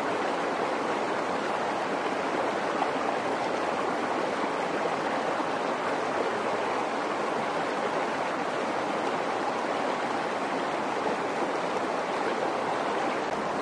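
Shallow rocky stream flowing steadily over stones, an even wash of water noise.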